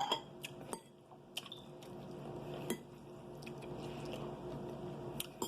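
Eating sounds: soft chewing of food, with a few light clicks of cutlery on dishes, most of them in the first second.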